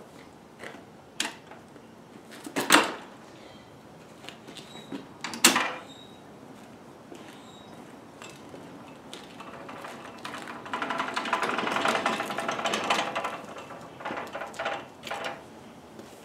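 Two sharp metal clanks a few seconds apart from the WEN 3720 table saw's folding stand as it is unfolded and set upright, followed later by a few seconds of louder scraping noise.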